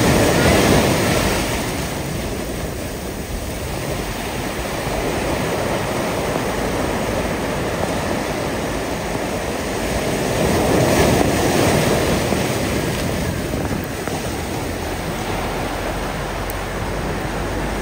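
Ocean surf breaking and washing over a flat rock shoreline, a steady rushing that swells loudest twice: just after the start and about eleven seconds in.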